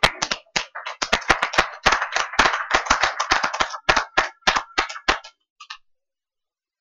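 A small crowd applauding: scattered hand claps that die out about five seconds in.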